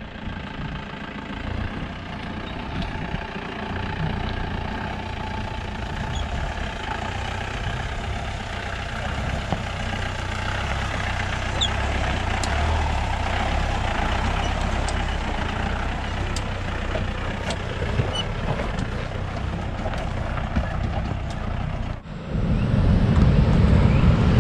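Mahindra Bolero 4x4's turbo engine running steadily under load as the vehicle crawls up a rocky dirt trail, with scattered small clicks of stones under the tyres. Near the end it cuts abruptly to a louder, lower rumble.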